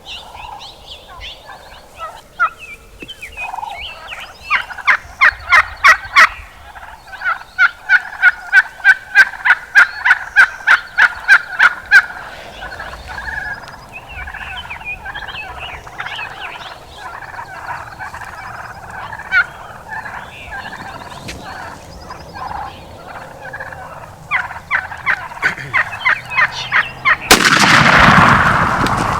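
Turkeys yelping in long runs of sharp, evenly spaced notes, about five a second and loud. Near the end comes a single shotgun blast with a trailing echo.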